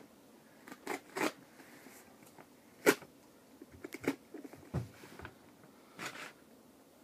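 Packaging of a new headset box being handled and opened: scattered rustles, crinkles and clicks, the sharpest about three seconds in.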